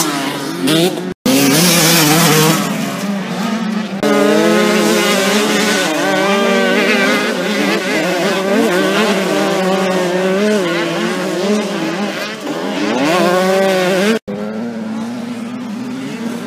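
Several motocross motorcycle engines revving together, their pitches rising and falling as the riders work the throttle. The sound drops out for an instant about a second in and again near the end.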